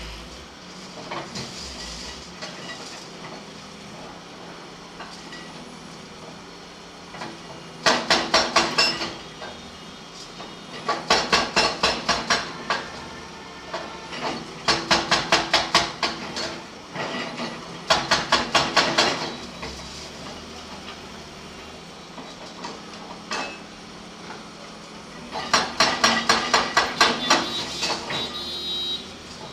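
Backhoe loader working with steady engine noise underneath, broken by five bursts of rapid metallic clanking, about seven sharp, ringing knocks a second, each burst lasting one to two seconds.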